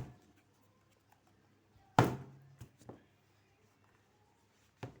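A sharp knock about two seconds in, then a few light taps, from handling the tablet while working its settings.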